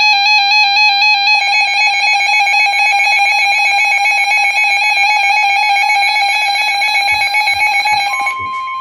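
Weather alert radios sounding their built-in warbling alarms, a second alarm joining about a second and a half in. Near the end the alarms stop and a steady NOAA Weather Radio warning tone begins, the signal that an alert broadcast is starting.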